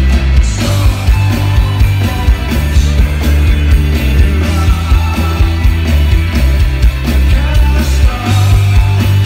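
Rock band playing loud live music, with heavy bass, drums and guitar.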